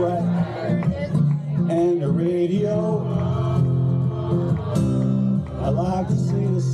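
Live country music: a man singing with his guitar accompaniment, played through a small PA.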